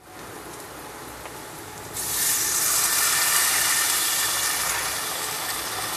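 Onion-tomato masala sizzling in a hot pan. About two seconds in, water is poured in and hits the hot masala, making a much louder hiss and splashing that slowly fades.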